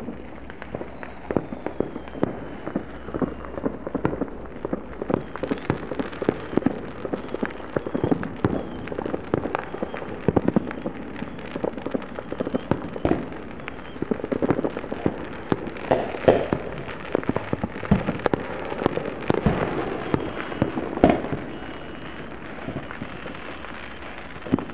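Many distant fireworks and firecrackers going off across a town, a near-continuous irregular crackle of pops and bangs. Louder single booms stand out in the second half.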